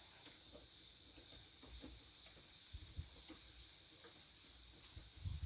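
Insects chirring steadily in the background, a faint high-pitched drone, with a soft knock about three seconds in and another near the end.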